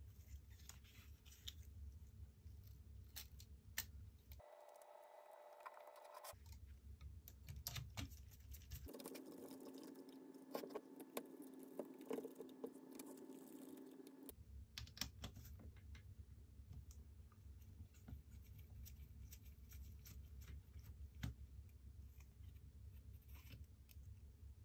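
Faint scattered clicks, taps and scratches of a screwdriver and fingers working on the plastic and metal parts of a Nikon D90 DSLR body as it is taken apart.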